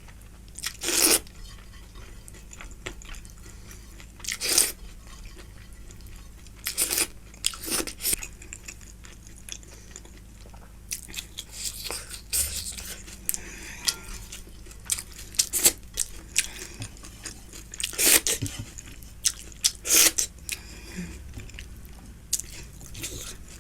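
Close-miked eating: irregular chewing, crunching and wet mouth clicks, with sharp crunches every second or two, over a faint steady low hum.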